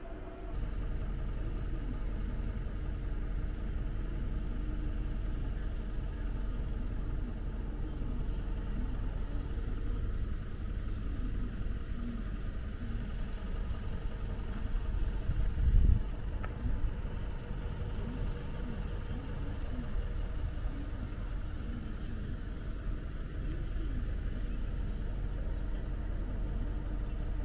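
Steady low rumble of a vehicle running, with one brief louder thump about sixteen seconds in.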